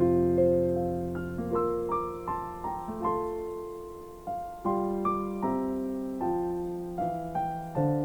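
Soft background piano music: gentle single notes and chords struck and left to die away, at a slow pace.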